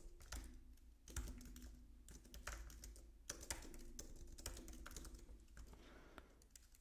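Typing on a computer keyboard: faint, irregular key clicks as code is entered.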